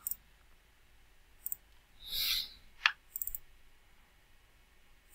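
Computer mouse clicking: a few single clicks and quick double-clicks, with a short hiss about two seconds in and a sharper tick just after it.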